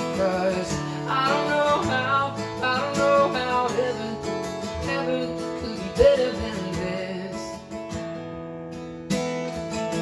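Music: strummed acoustic guitar with a sung vocal line over roughly the first half. The music drops back briefly near the end, then a strum comes in sharply.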